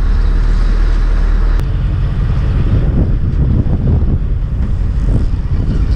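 A fishing boat's engine runs steadily while wind rumbles on the microphone. There is a sharp click about a second and a half in.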